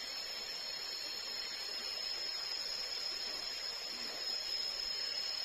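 Steady, high-pitched drone of a tropical forest insect chorus, unbroken, over a soft background hiss.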